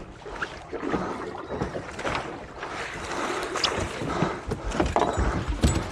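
Wind buffeting the microphone and water moving against the hull of a small fishing boat at sea, with scattered knocks and clicks.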